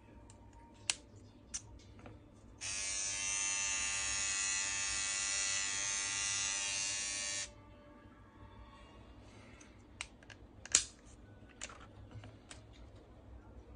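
Xiaomi Mijia electric nose and ear hair trimmer switched on, its small motor giving a steady high buzz for about five seconds before it is switched off. Sharp clicks from handling the trimmer and its plastic heads come before and after the buzz.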